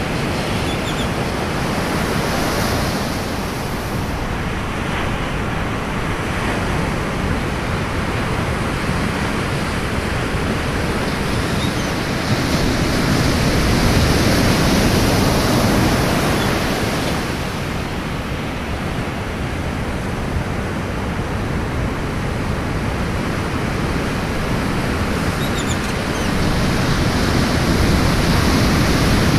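Ocean surf breaking on a beach: a continuous rush of breaking waves and wash, swelling louder around the middle and again near the end as bigger waves come in.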